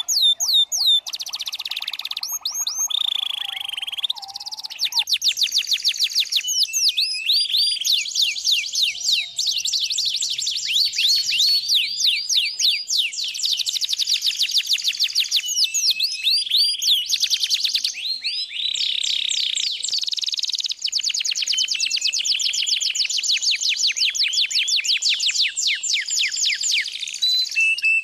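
Birds chirping in fast, high trills of clear repeated notes, several voices overlapping without a break.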